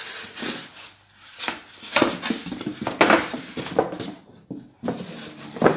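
Glass bowl and metal rack of a halogen oven knocking and clattering as they are handled and packed back into the box, a string of separate knocks with the loudest one near the end.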